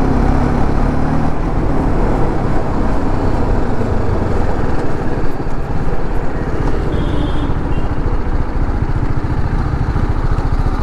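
Motorcycle engine running under way, mixed with wind rush on the helmet-mounted microphone; over the last couple of seconds the engine drops to a slow, pulsing idle as the bike comes to a stop.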